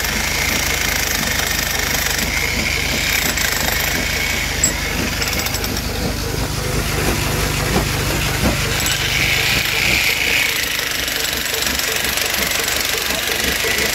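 Diesel engine of a JCB backhoe loader running steadily with a knocking beat, with a few sharp knocks on the stone.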